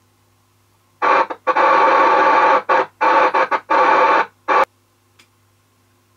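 Lake Manxman 850 FM CB transceiver's speaker letting loud receiver hiss through in choppy bursts as its squelch knob is turned open. The hiss starts about a second in and cuts off with a click after about three and a half seconds, over a faint steady hum.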